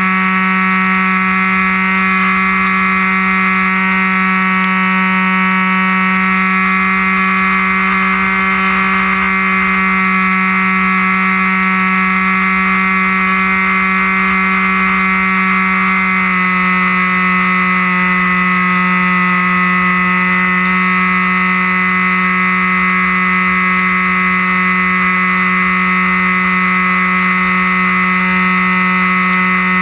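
Electric RC plane's brushless outrunner motor and 7x5 propeller running at steady throttle, a constant whining hum. About sixteen seconds in, the pitch steps slightly, as with a throttle change.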